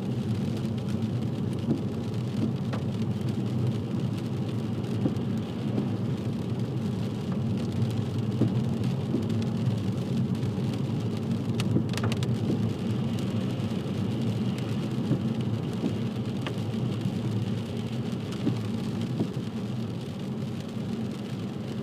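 Steady road noise inside a moving car on a wet road: engine and tyre rumble with the hiss of tyres on wet tarmac, and a faint click or two near the middle.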